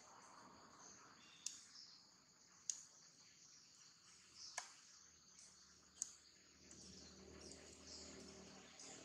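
Faint, steady chorus of insects, with four short, sharp clicks spread through it.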